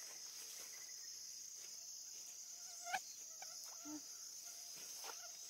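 Steady high-pitched chorus of insects, crickets or similar, buzzing without a break, with a single sharp click about three seconds in.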